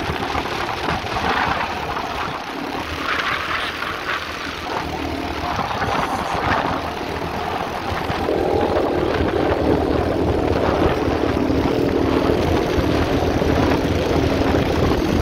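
Quad bike engines running as the ATVs ride over sand dunes, a continuous engine drone that settles into a steadier, slightly louder hum from about halfway through.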